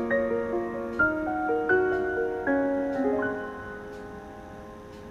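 Background music: a slow, soft piano melody of single notes that fades away about three and a half seconds in, leaving a faint lingering tone.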